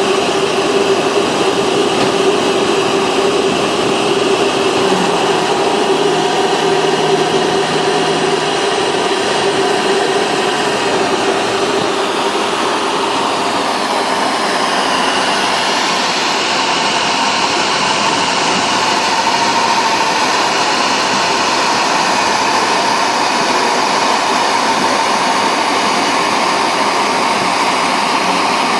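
A motor running steadily with a loud rushing noise and a steady hum, its tone shifting slightly about halfway through.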